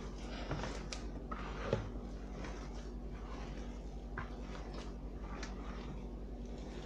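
A hand squeezing and mashing crumbly tamale masa (Maseca, lard and warm water) in a plastic bowl: soft, irregular squishing and rustling with a few faint knocks, the sharpest about two seconds in, over a steady low hum.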